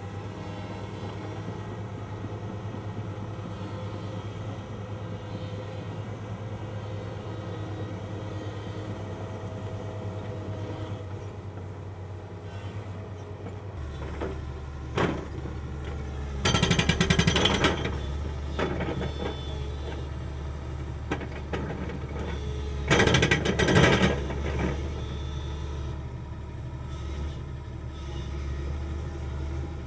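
Excavator's diesel engine running steadily, its note dropping deeper about halfway through, with two short bursts of a hydraulic breaker hammering concrete rubble, each about a second long.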